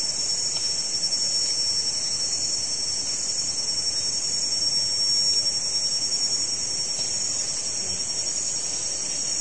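Steady, high-pitched chorus of insects from the surrounding forest, with a faint regular pulse running through it.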